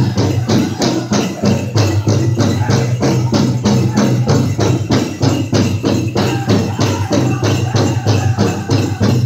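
Powwow drum group playing a contest song: the big drum is struck in a fast, even beat, and singers' voices come up over it in the second half. Jingling bells run through the beat.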